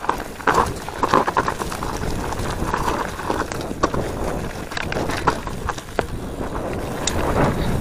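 Mountain bike riding fast down a dirt trail: tyres running over the ground and the bike rattling, with many sharp knocks and clicks over bumps, and wind rushing over the microphone.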